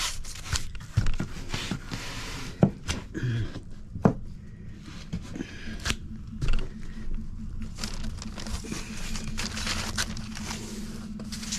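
Handling noises of floor painting: scattered knocks, taps and scraping, with some crinkling. A low steady hum joins about four seconds in and stops near the end.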